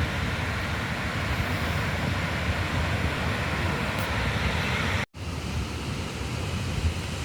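Wind buffeting the microphone over the steady wash of sea surf. The sound cuts out for an instant about five seconds in.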